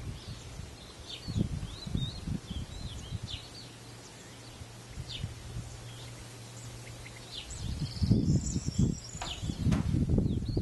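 Small birds chirping and calling, with many short high notes and whistles, busiest in the first half. Under them, wind buffets the camera's microphone in low rumbling gusts, growing heavy for the last three seconds.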